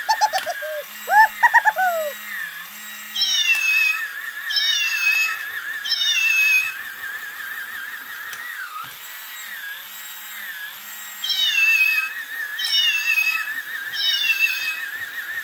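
Battery-powered walking plush cat toy: its small gear motor runs with a steady, wavering high whine while its sound chip plays short electronic meows, three in a row and then three more near the end. A few quick chirps come in the first two seconds.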